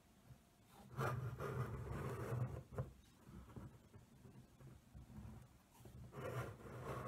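Faint rubbing and scraping as a hand grips and turns a 3D-printed PLA Eiffel Tower model, in two stretches: about a second in and again near the end.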